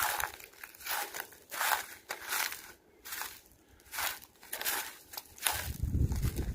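Footsteps crunching, a bit more than one crunch a second.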